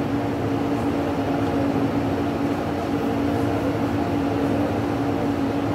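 Steady machine hum from a floor-standing air conditioner, with a constant low tone that does not change.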